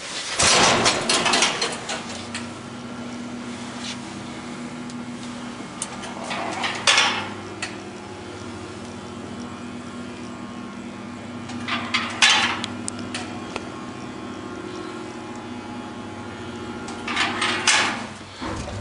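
Vintage Otis traction elevator running: a steady hum from the hoist machine, broken by loud metallic clattering bursts about a second in, about a third and two thirds of the way through, and again near the end.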